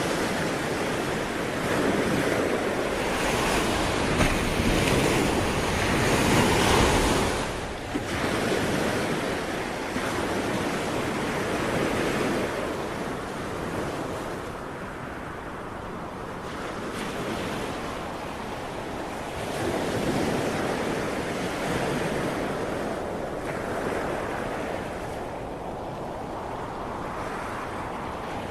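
Sea waves washing ashore, the surf swelling and ebbing in slow surges several seconds apart, the strongest in the first quarter, with some wind on the microphone.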